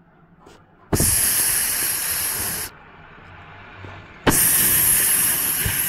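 CO2 stage jet machines with LED lights firing two blasts of carbon dioxide, each a loud hiss that starts and cuts off sharply. The first blast lasts nearly two seconds; the second begins about four seconds in.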